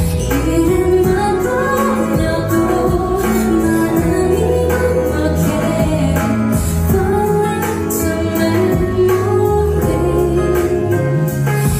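A woman singing a slow ballad live into a microphone over backing music with a steady bass line and regular drum hits.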